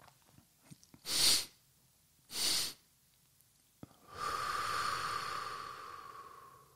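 A person doing a physiological sigh: two quick, sharp inhales through the nose about a second apart, the first louder, then after a short pause and a faint click, one long exhale through the mouth that slowly fades over about two and a half seconds.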